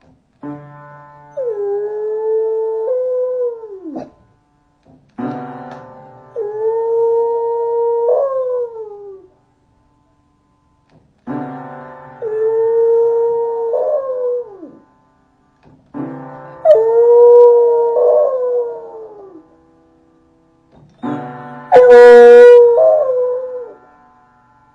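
Puppy howling when left alone: five long howls with short pauses between, each holding its pitch and then sliding down at the end. The last howl is the loudest.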